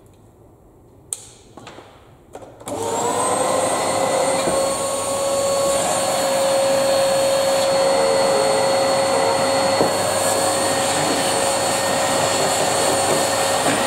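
Vacuum cleaner motor switched on about three seconds in, its whine rising briefly and then holding steady with a loud whirring rush of air. The motor is being test-run after its wiring was changed in an attempt to make it run backwards and blow instead of suck.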